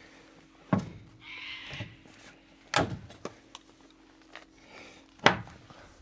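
A new timber post being knocked into place in the porch framing: three heavy thuds roughly two and a half seconds apart, with lighter knocks and a brief scrape between them.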